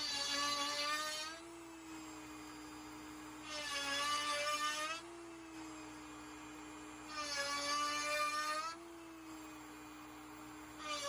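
LowRider v4 CNC router with a 7/8-inch box cove bit carving divots in red-oak-veneered hardwood plywood. The router spins steadily, and about every four seconds the bit cuts into the wood for a second and a half, adding a louder cutting noise as the motor's pitch sags slightly under load. There are three such cuts, and a fourth begins at the very end.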